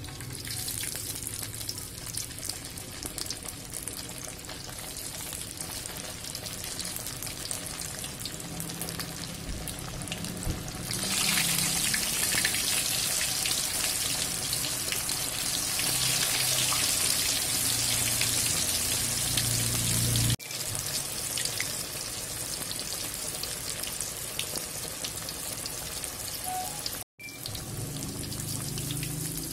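Hot oil in a wok sizzling and bubbling as pieces of spiced tofu and tempe deep-fry. The sizzle grows louder about a third of the way in, breaks off abruptly about two-thirds through, and cuts out for an instant near the end.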